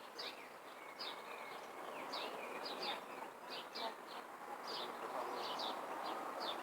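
Birds chirping: many short, high calls repeated several times a second over a steady background hiss.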